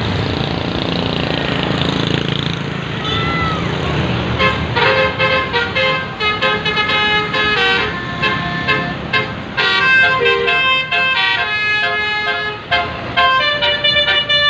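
Bus telolet horn, a basuri multi-tone musical horn, playing a fast tune of several horn notes at once that change every fraction of a second. It starts about four seconds in, after a stretch of steady rumble and noise.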